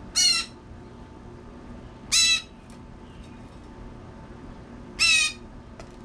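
Blue jay calling three times, each call short (about a third of a second) and loud: one right at the start, one about two seconds in and one about five seconds in.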